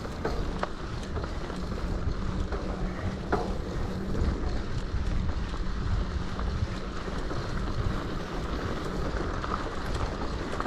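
Wind buffeting the microphone of a camera on a moving mountain bike, a steady low rumble with a few small clicks and rattles.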